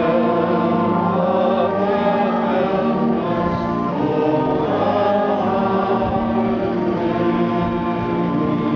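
A crowd singing a hymn together in slow, long-held notes.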